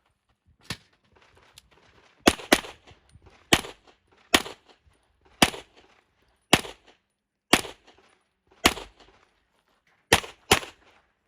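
Handgun shots fired in a practical shooting match: about ten loud shots, mostly about a second apart, with a quick pair near the start and another near the end, each with a short echo.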